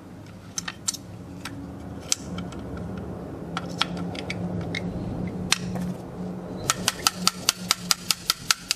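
A light hammer tapping a steel pin punch to drive out a trigger-group retaining pin of a Merkel RX Helix action. Scattered sharp metallic taps, then a quick run of about six taps a second near the end.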